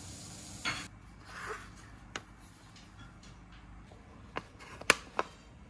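Small wooden blocks handled and set down on a wooden board: a soft rustle near the start, then four sharp knocks, the loudest just before five seconds in.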